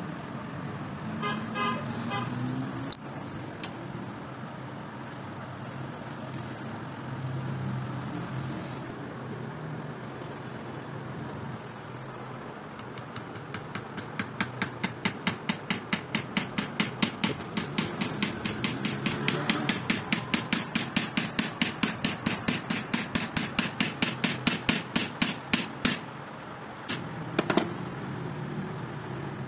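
A hammer tapping on metal in an even, rapid series, about three taps a second for roughly twelve seconds, then two more taps near the end, as a steel sleeve is fitted onto the brake cam of a motorcycle drum-brake panel.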